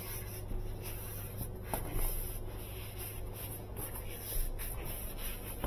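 Faint rustling and a few light clicks from handling the thin copper capillary tubing of a refrigerator heat exchanger while measuring its length, over a steady low hum.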